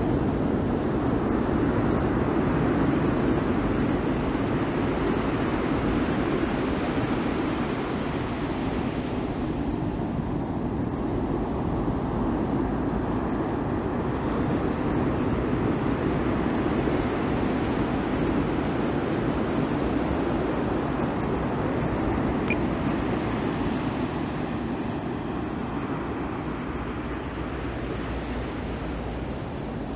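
Steady rushing noise of ocean surf and wind, swelling and easing slowly over several seconds.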